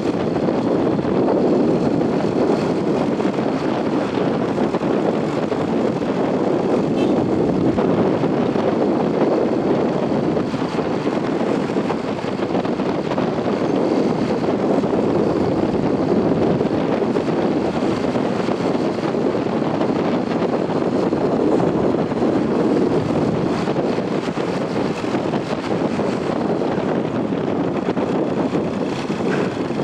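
Steady rumble and rush of a moving vehicle: engine and road noise mixed with wind on the microphone, holding even throughout with no horn.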